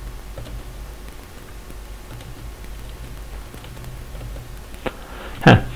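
A few faint computer keyboard key clicks over a steady low hum and microphone hiss, with a short vocal sound near the end.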